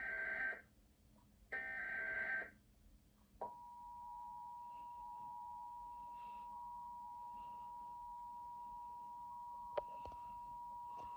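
Emergency Alert System SAME header: two bursts of warbling digital data tones, each about a second long. About three and a half seconds in, the EAS two-tone attention signal (853 and 960 Hz sounded together) starts and holds steady, with a brief click near the end; together they open a statewide required monthly test.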